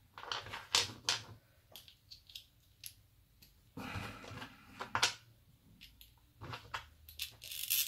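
Light clicks and clinks of small metal hardware, a washer, a nut and a screw fitted through a rubber disc, being picked up and handled on a wooden workbench, with a short scrape about four seconds in.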